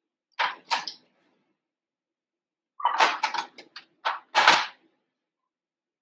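Kitchen things, among them a wooden rolling pin, being picked up and set down on a metal tray, giving short knocks and clatters: one pair about half a second in and a quick run of them from about three to five seconds in.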